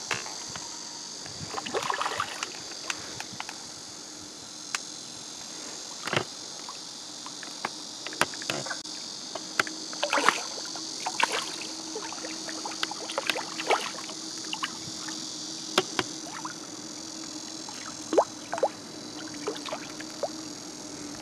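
A hooked carp splashing at the water's surface in irregular bursts while it is played on the line, with the loudest splashes about two, ten and eighteen seconds in. Under it runs a steady high drone of insects.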